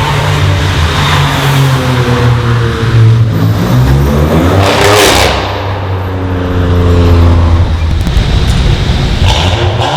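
Cars accelerating hard past, engine note rising. One goes by close about five seconds in with a sharp drop in pitch, and a second engine keeps pulling. A few sharp exhaust pops come near the end.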